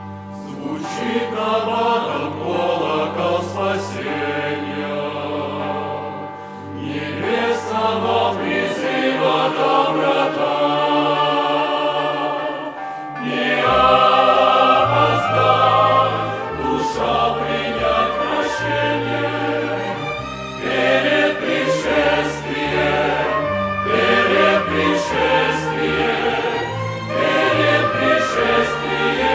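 Church choir singing with a chamber orchestra accompanying, sustained chords over held bass notes, growing louder about halfway through.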